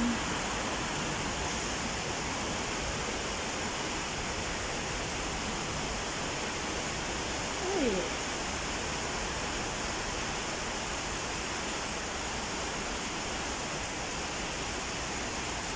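Heavy rain falling, a steady even hiss, with a brief falling sound about halfway through.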